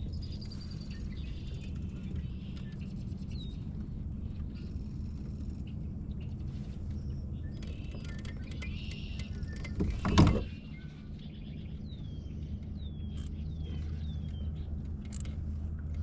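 Birds chirping and calling, with a run of short downward-sweeping calls about two seconds after the halfway point, over a steady low hum. A single sudden knock or thump about ten seconds in is the loudest sound.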